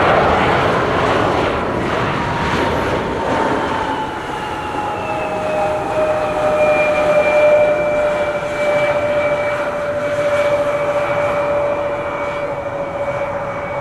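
Embraer E-175 regional jet's turbofan engines on the landing roll: a loud, broad jet noise in the first few seconds, easing off, with an engine whine that slides down in pitch and then holds steady.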